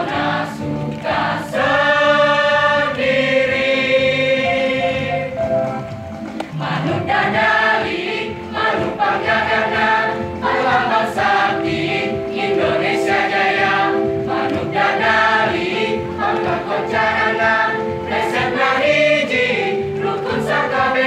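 Large mixed choir of boys and girls singing a song in harmony, sung through microphones, with a steady low beat underneath.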